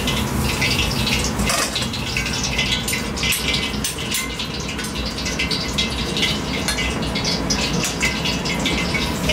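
Commercial gas range with its burners running in a steady rush, and water boiling in a stockpot as noodles are blanched in a mesh strainer basket. A dense, irregular crackling and bubbling runs throughout.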